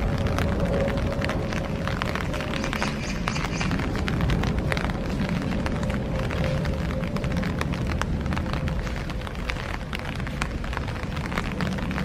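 Wind buffeting the microphone in a steady low rumble, with scattered raindrop ticks.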